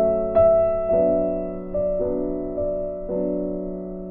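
Background music: slow piano chords, each struck and left to ring as it fades, a new one about every half second to a second.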